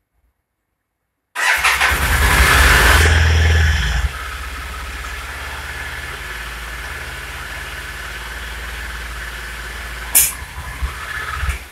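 Yamaha TDM850 parallel-twin engine starting about a second in and running louder and faster for about three seconds. It then settles to a steady idle. From about 10 seconds in come a few sharp pops, the engine sneezing back through the carburettor.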